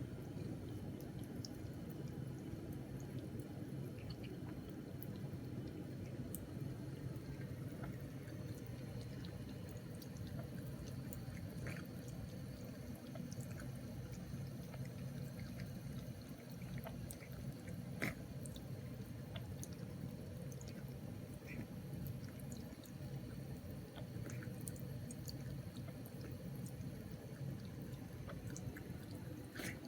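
A steady trickle of water with scattered faint drips and ticks while a cat drinks, and one sharper click about halfway through.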